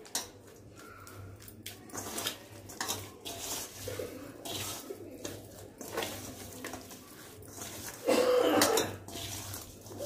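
Hands mixing masala paste into raw fish pieces in a stainless steel bowl: wet squishing with irregular clinks and scrapes against the steel, and one louder burst about eight seconds in.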